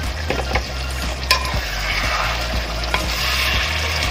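A wooden spatula stirring pork and vegetables in a thick sauce in a stone-coated wok, over a steady sizzle of the simmering pinakbet. A few sharp clicks come from the spatula striking the pan.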